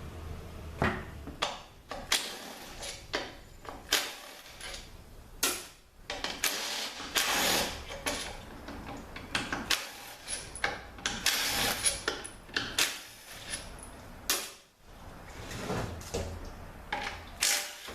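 Valve body bolts on a THM-350 automatic transmission being run out with a hand tool: short bursts of tool noise mixed with sharp metallic clicks and knocks.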